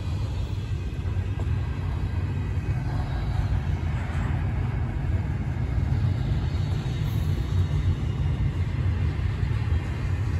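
Slow-moving CSX freight train rolling past: a steady low rumble of the cars on the rails.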